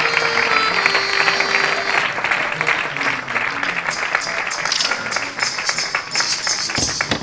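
Audience clapping, with music faintly under it at first. About four seconds in, a higher, rattling hiss joins the clapping.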